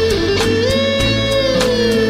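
Background music: an electric guitar holding a long sliding note over a steady beat.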